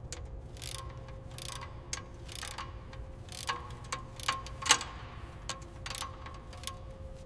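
Irregular mechanical clicks and ticks, about a dozen spaced unevenly, over a low steady hum.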